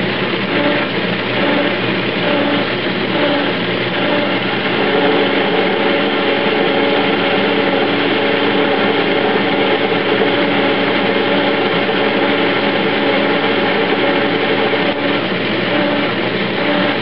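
Metal lathe running under power while cutting a replacement bearing, its motor and gearing making a steady mechanical drone. A tone in it pulses on and off for the first few seconds, holds steady, then pulses again near the end.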